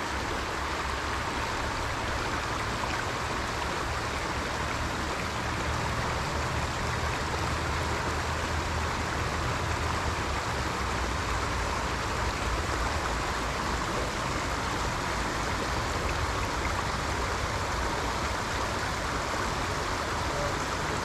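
Steady rushing of flowing water, an even hiss with an uneven low rumble underneath.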